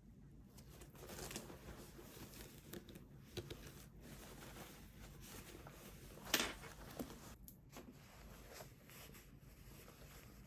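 Faint rustling and handling noises, like paper or packaging being crinkled, with one louder short rustle about six seconds in.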